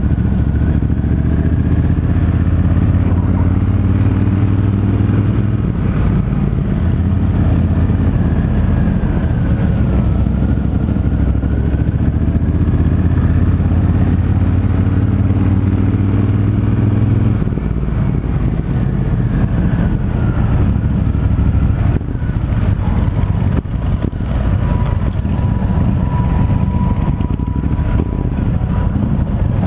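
Triumph Thunderbird Storm's parallel-twin engine running steadily under way, heard from the bike. About seventeen seconds in, the steady note breaks up and turns rougher as the engine eases off.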